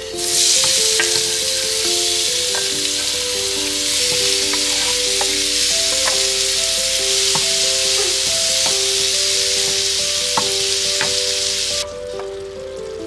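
Diced tomatoes dropped into hot oil and fried garlic in a frying pan, sizzling loudly with scattered light clicks; the sizzle cuts off suddenly near the end. Background music with a simple melody plays under it.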